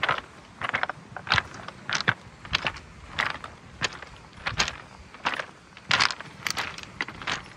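Footsteps on a beach of large rounded pebbles, the stones clacking and shifting underfoot at a steady walking pace of about three steps every two seconds.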